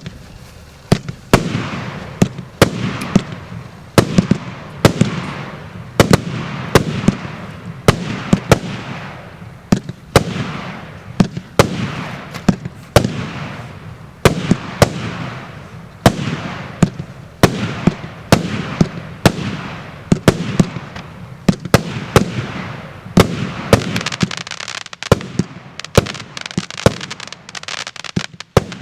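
A 49-shot, 1-inch consumer fireworks cake firing shot after shot, with sharp bangs about one to two a second, each trailing off in a noisy tail.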